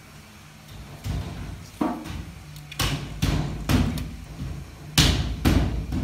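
Irregular knocks and clatters, about eight sharp hits at uneven spacing, the loudest about five seconds in, over a low steady hum at the start.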